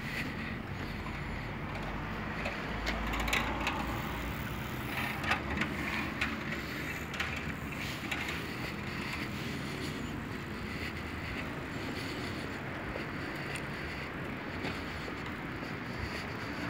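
Steady outdoor background noise, with a low rumble in the first few seconds and scattered light clicks and knocks around the middle.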